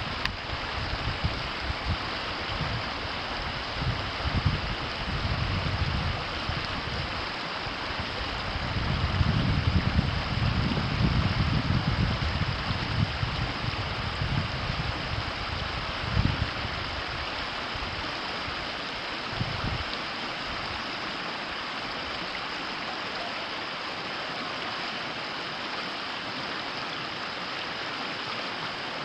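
River water flowing and rushing steadily. Irregular low rumbling gusts come and go through the first twenty seconds or so, then stop.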